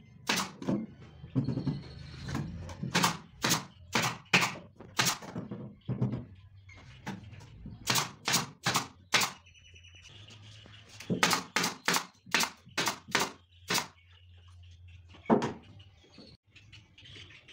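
Sharp knocks on wood, in runs of two to three a second with pauses between, ending with a single loud knock.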